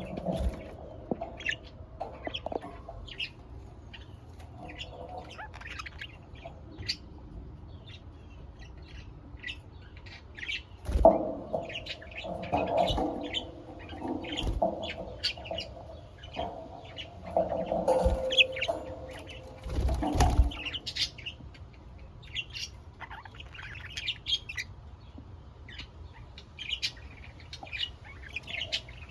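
Pet budgerigars chirping and twittering in many short calls, with a few louder bursts of fluttering or rustling around the middle.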